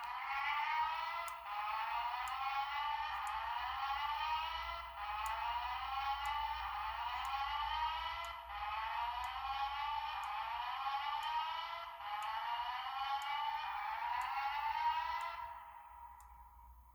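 Fire alarm speaker sounding an electronic evacuation tone of fast, repeating rising sweeps. It comes in runs of about three and a half seconds with short breaks between them, and dies away near the end.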